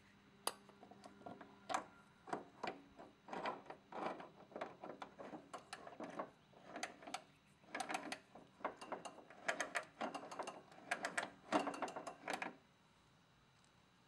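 A rear wheel of a Honda HRX217 lawn mower being handled and pushed onto its axle, making many irregular plastic clicks and knocks in quick succession that stop near the end.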